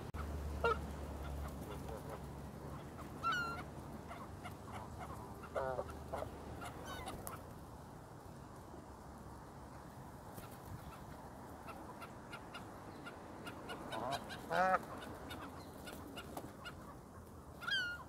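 Canada geese honking every few seconds, single honks with a louder double honk about two-thirds of the way through, over a low rumble that fades after the first several seconds.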